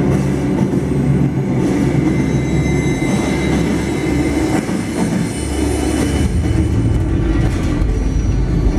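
Railway train running on the rails: a steady, loud rumble of moving carriages.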